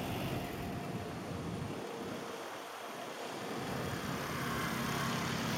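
Wind rushing over a handheld camera's microphone while riding along a road on an electric self-balancing vehicle, with a steady low rumble that drops away briefly about halfway through and comes back stronger near the end.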